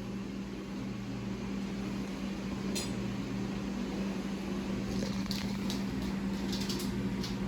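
A steady low hum of running household electrical equipment, with a few faint light clicks and clinks like dishes being handled.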